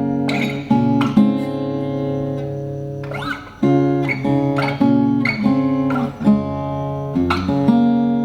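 Maton steel-string acoustic guitar played unplugged, a series of chords struck one after another and left to ring, freshly tuned and without the Tonewood Amp's effects switched on yet.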